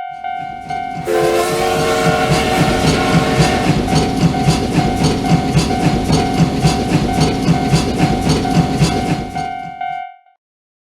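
Railroad crossing warning bell ringing a steady pulsing 'kan-kan' tone. About a second in, a train horn sounds and a train passes with an even clickety-clack of wheels over rail joints, about three or four clacks a second. It all cuts off abruptly near the end.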